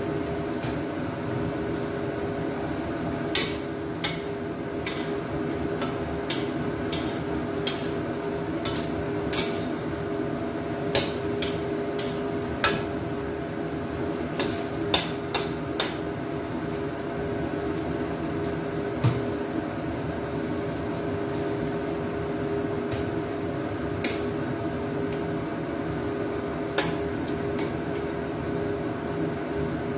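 Metal ladle knocking and scraping against a steel wok during stir-frying, with about two dozen sharp clanks, most of them in quick succession between about three and sixteen seconds in and a few scattered later. A steady hum runs underneath.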